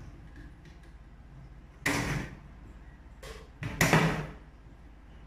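Hand tools and small plastic mounting parts being handled on a tabletop: a short clattering scrape about two seconds in, a faint one, then a louder pair close together near four seconds, over a low steady hum.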